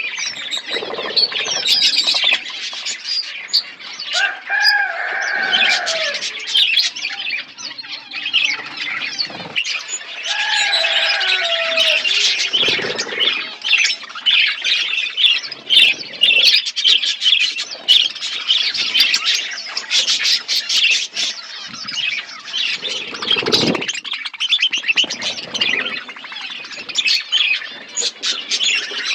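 A flock of small cage birds chirping and chattering continuously, many calls overlapping. Louder drawn-out calls stand out about four seconds in and again about ten seconds in.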